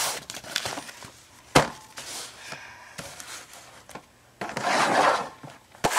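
Things being handled and moved about on a wooden desk: rustling and scraping, with a sharp knock about a second and a half in, a longer, louder rustle around five seconds, and another knock near the end.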